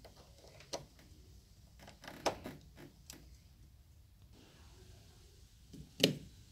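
Light plastic clicks and knocks of a USB cable and a plug-in power adapter being handled and plugged in, with a louder knock near the end.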